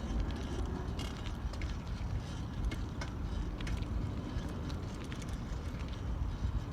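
Steady low outdoor background rumble with a few faint clicks scattered through it.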